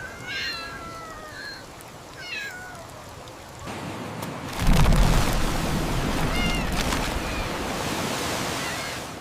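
A cat meows a few times, high, gliding calls. Then a rush of water swells in, surging loudly with a deep rumble about four and a half seconds in, like a wave crashing, and keeps running with faint meows inside it.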